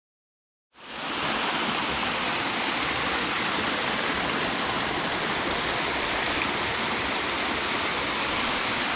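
Munro Brook Falls, a waterfall about 25 to 30 feet high, pouring with a steady, even rush of water that fades in from silence just under a second in.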